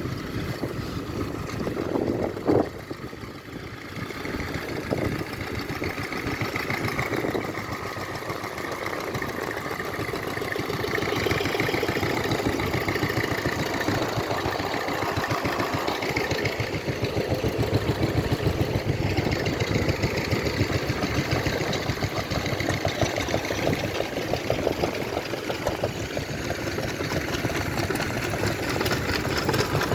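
Engines running steadily with a rapid, even pulse, and one sharp knock about two and a half seconds in.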